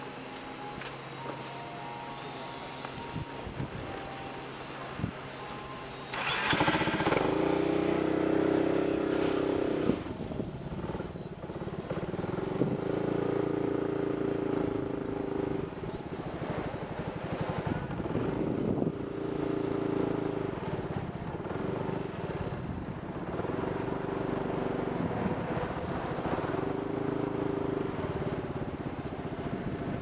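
A steady insect drone, then about six seconds in a motorcycle engine starts. The bike pulls away slowly, its engine note rising and falling again and again as it rides off.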